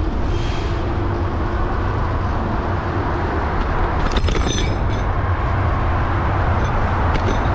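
Steady rush of wind on the microphone and tyre noise from a bicycle ridden at speed, with a few brief clicks about four seconds in.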